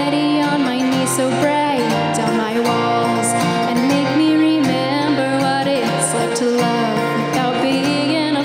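A woman singing a slow, held melody while strumming her acoustic guitar live, the voice carrying over the chords.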